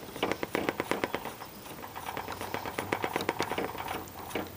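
Plastic coupling ring on a Comet GP-9 antenna joint being screwed tight by hand, giving a rapid, uneven run of small clicks as fingers turn the ribbed ring on its threads.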